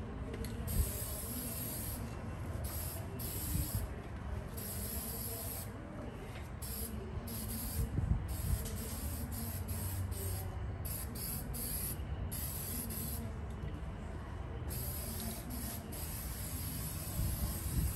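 Aerosol spray-paint can hissing in repeated bursts of varying length, cutting on and off many times as a coat of silver paint is sprayed on in short passes. A few light knocks and a low steady rumble sit underneath.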